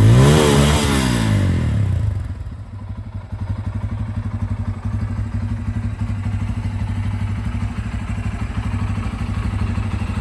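Bajaj Pulsar N250's single-cylinder engine, heard at the exhaust, revved once: the pitch rises and falls back within the first two seconds. It then settles into a steady, evenly pulsing idle.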